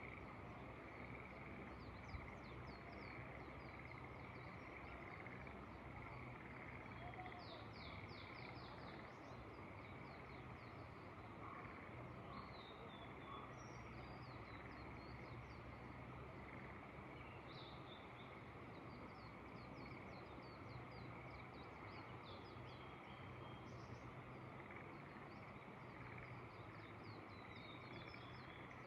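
Faint outdoor ambience: small birds chirping in short repeated phrases on and off over a steady background chorus of frogs and a low, even hiss.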